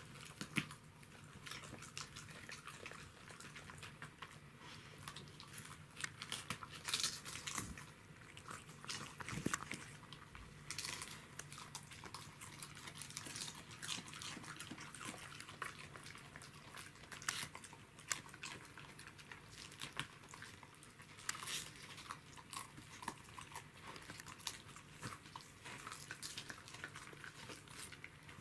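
Dogs, a Pembroke Welsh corgi among them, eating raw cabbage leaves: irregular crisp crunches and chewing, with a few louder bites.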